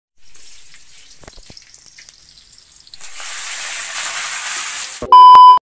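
Food frying in hot oil in a wok: a light sizzle at first, then about three seconds in a louder, fuller sizzle as pieces of meat go into the pan. Near the end a short, very loud electronic beep sounds for about half a second and cuts off.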